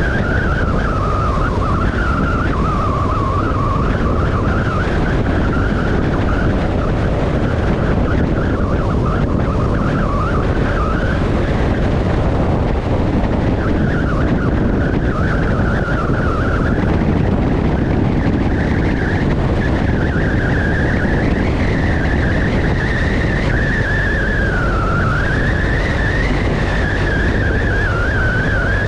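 Motorcycle under way, its engine running steadily with a whine that rises and falls with engine speed, over a constant rush of wind and road noise.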